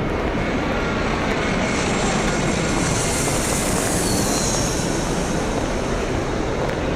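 Steady airport terminal din, with a high hiss that swells up about two seconds in and fades away a few seconds later, as something passes.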